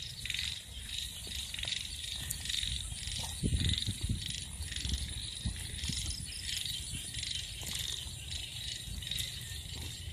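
A steady, pulsing night chorus of insects, with footsteps and rustling in the grass and dirt underfoot, heaviest about three and a half seconds in.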